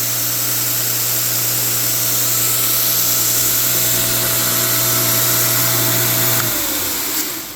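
A DIY Star belt grinder runs steadily, its motor humming under the hiss of the abrasive belt running over the wheels. Near the end it is switched off: the motor's pitch falls and the sound dies away as it winds down.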